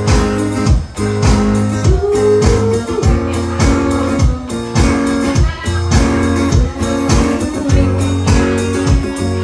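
Live rock band playing an instrumental passage: electric guitar over bass and a steady drum beat, with a bent guitar note about two seconds in.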